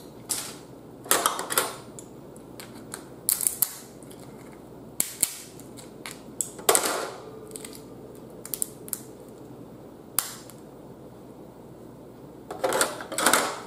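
Boiled blue crab shell being cracked with a metal crab cracker and snapped apart by hand: a run of sharp cracks and crunchy clusters every second or two, heard close up.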